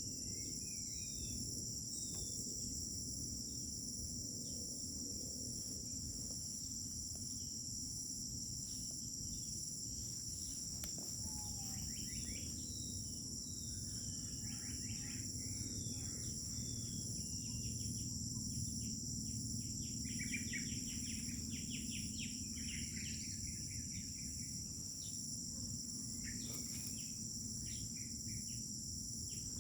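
A chorus of crickets keeps up a continuous high trill, while birds give scattered short chirps and calls that are busiest around the middle. A low rumble of background noise runs underneath.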